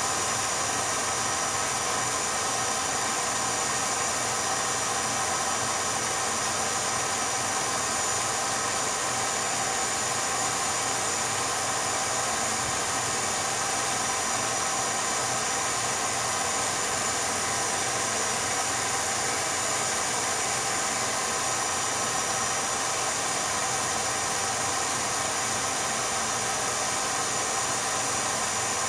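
Steady, even hiss with faint unchanging hum tones and no change throughout: the background noise of a silent 8mm home-movie transfer. Nothing in the filmed scene is heard.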